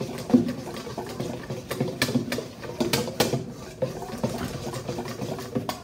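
A wire whisk beating a runny chalk-and-flour mixture in a stainless steel bowl: quick, irregular clicks and scrapes of the wires against the metal.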